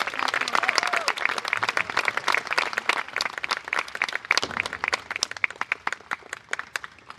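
Audience applauding, the clapping thinning out and stopping near the end.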